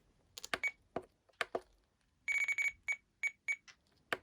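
Radio-control transmitter beeping as its menu buttons are pressed: a few sharp clicks, then a quick run of short high beeps about two seconds in, followed by three or four single beeps.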